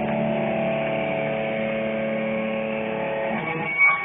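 Live band music through a phone's microphone: a sustained, distorted guitar chord held and ringing, which dies away about three and a half seconds in, followed by a brief hit just before the end.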